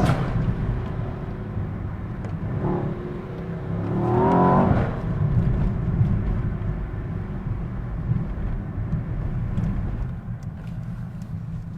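2024 Mercedes-AMG S63's twin-turbo V8 heard from inside the cabin while driving: a steady low engine and road noise, with the engine note rising as the car accelerates, briefly near three seconds in and most strongly about four seconds in.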